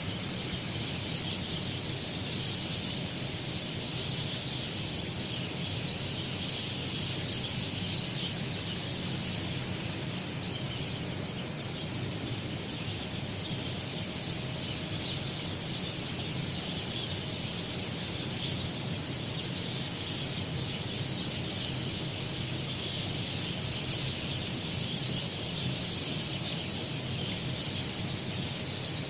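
Many small birds chirping continuously in a dense dawn chorus, over a low, even background hiss.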